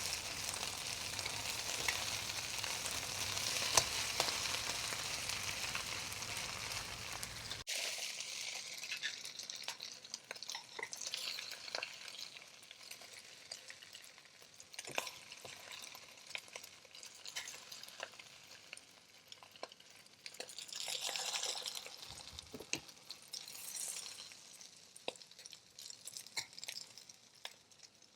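Fried radish cake being stir-fried in a pan, sizzling loudly in hot fat for the first several seconds. After an abrupt cut it sizzles more quietly, with sharp clicks and scrapes of stirring and two short louder hisses near the end.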